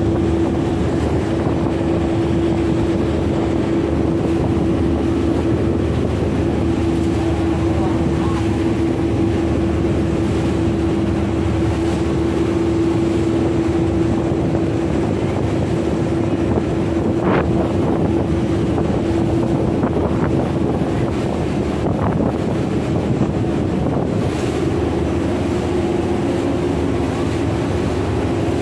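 A boat's engine running steadily with a constant hum, over the rush of its wake and wind buffeting the microphone.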